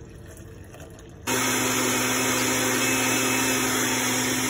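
A Hamilton Beach countertop blender starts abruptly about a second in and runs at a steady speed, blending the liquid orange gelatin into the cream with a constant motor hum.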